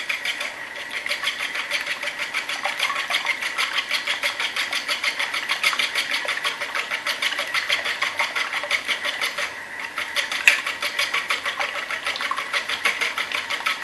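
Wire balloon whisk beating eggs in a plastic bowl: a rapid, steady clatter of the wires against the bowl, with a brief lull and a single sharp tap about ten seconds in.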